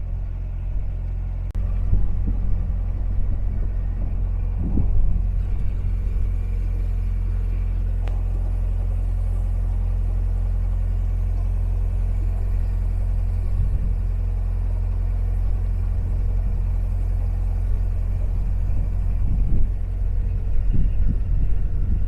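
Narrowboat's diesel engine running steadily under way, a deep even hum, with wind gusting on the microphone now and then, most of all near the end.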